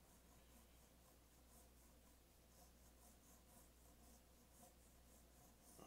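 Faint scratching of a soft 4B graphite pencil on drawing paper: light, repeated sketching strokes, about two a second, over a low steady hum.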